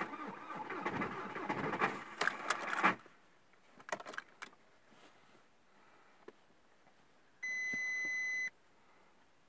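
Keys rattling and scraping for about three seconds at the ignition of a VW Golf 4 1.9 TDI, then a few light clicks. About seven and a half seconds in, the instrument cluster gives a steady one-second electronic beep as the ignition is switched on and the warning lamps light, the glow-plug lamp among them: the diesel is preheating before the start.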